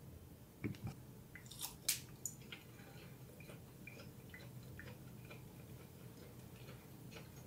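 A person biting into a sausage on a stick, with a few faint sharp clicks in the first two seconds or so, then faint chewing.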